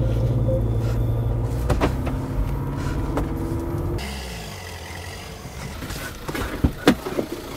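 Car engine running with a steady low drone, then a car rolling in and slowing, with a few sharp clicks and crunches near the end.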